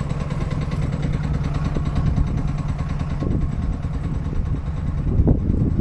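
MAN 12.220 L2000 truck's six-cylinder diesel engine idling steadily, with an even low firing rhythm.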